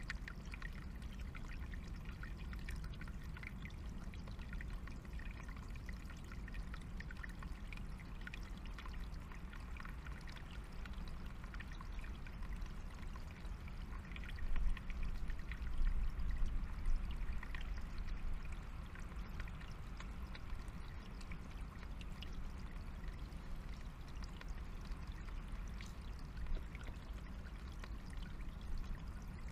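Small forest stream trickling steadily over stones, with a few louder bumps about halfway through.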